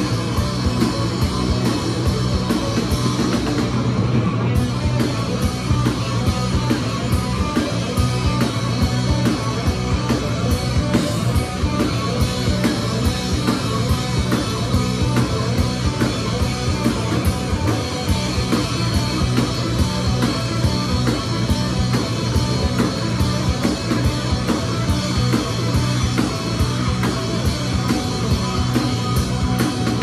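Live rock band playing an instrumental passage: several bass guitars over a driving drum kit, with fast, even cymbal strokes. It is loud and unbroken throughout.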